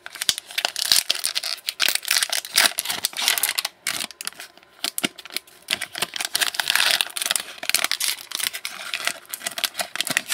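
A trading card pack wrapper crinkling and tearing open, with many small clicks and rustles of cards sliding against each other as they are handled.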